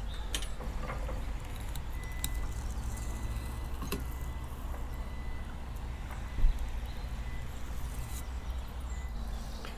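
Boat's engine running steadily at low revs, a low rumble, with a single louder knock a little past the middle.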